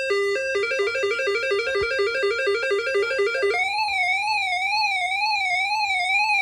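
Whistler WS1025 weather radio's speaker sounding its test alert tones. An alternating two-tone beep speeds up into a rapid trill within the first second, then about three and a half seconds in it switches to a warbling siren tone for the watch-alert test.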